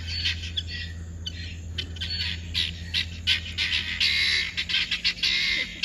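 Domestic guinea fowl giving a rapid run of short, harsh, scratchy alarm calls that grow denser about halfway through, set off by a puppy chasing them.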